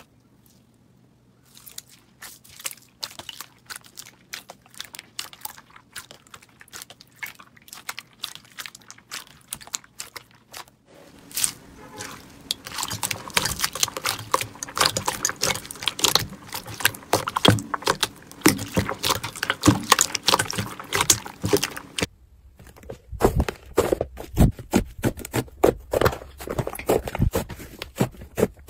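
Hands pressing, squishing and poking slime: a dense run of small clicks, pops and crackles, quiet at first and louder from about eleven seconds in, when a clear slime full of foam beads is worked. After a brief pause near the end, a thick white fluffy slime is squished and pulled apart with more close clicking.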